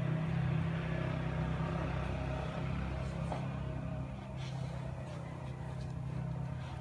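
Steady low motor hum with a rushing noise over it, like an engine running nearby, easing off slightly after a few seconds.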